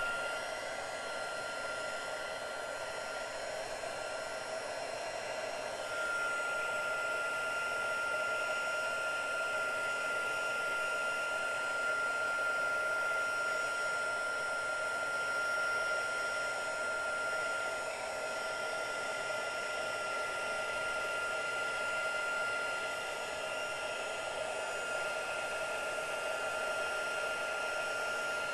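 Stampin' Up! embossing heat tool running, a steady blowing with a high fan whine, as it melts embossing powder on card stock. It gets a little louder about six seconds in.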